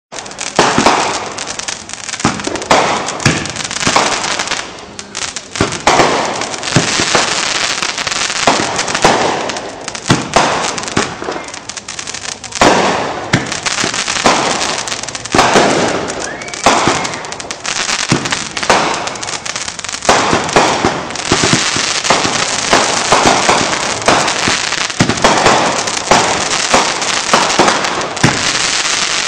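Aerial fireworks going off in a dense, continuous barrage: loud bangs one after another, about one or more a second, with crackling between them.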